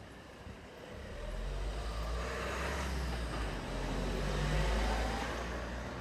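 A motor vehicle driving past on the road, its engine rumble and tyre noise building about a second in and easing off near the end.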